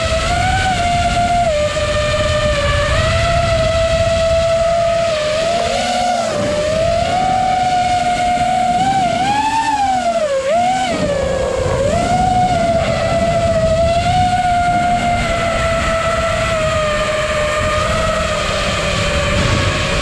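FPV quadcopter's electric motors and propellers whining, heard from the onboard camera over rumbling wind noise. The pitch holds fairly steady, then swoops down and up a couple of times about halfway through as the throttle changes, before settling again.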